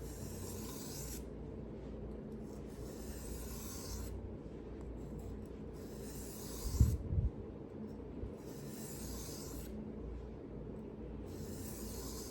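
A knife blade being drawn across a whetstone in slow, even sharpening strokes, each a long rasping hiss of a second or more, about five in all. A short dull thump about seven seconds in.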